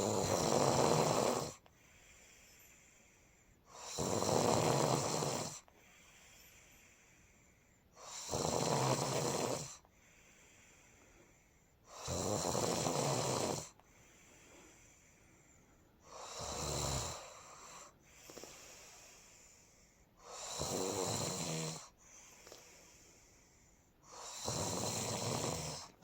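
Snoring: seven long snores about four seconds apart, each a low buzz lasting under two seconds, with fainter breathing between them.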